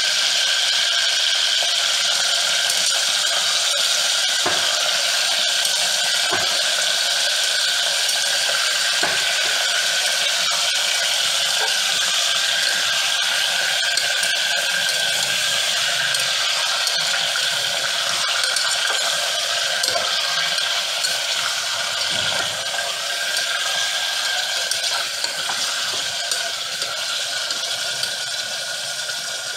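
Meat pieces sizzling as they fry in an aluminium pressure cooker, a steady hiss, while a metal spoon stirs them and now and then knocks or scrapes against the pot.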